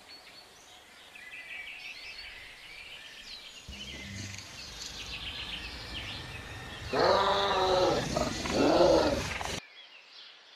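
Birds chirping, then about seven seconds in two loud, drawn-out cries that rise and fall in pitch. The sound cuts off abruptly about a second before the end.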